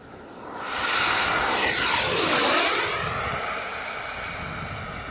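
A Freewing T-45 RC jet's 90mm electric ducted fan whine making a low, fast pass close overhead. It swells to a loud rush about a second in, drops in pitch as the jet goes by, then eases to a steadier, quieter whine as it climbs away.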